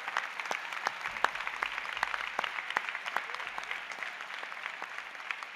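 Auditorium audience applauding steadily, many hand claps blending into a continuous patter that eases slightly near the end.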